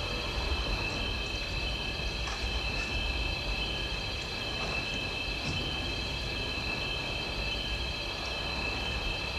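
A steady high-pitched chirring drone that holds unchanged throughout, over a low rumble.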